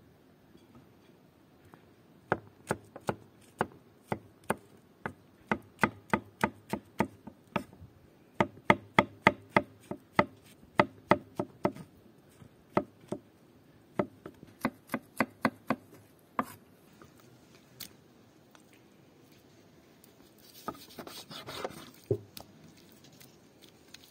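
Kitchen knife slicing button mushrooms on a thick wooden log cutting board: sharp knocks of the blade on the wood in quick runs, at about three a second at their fastest, stopping about two-thirds of the way through. A brief rustle near the end.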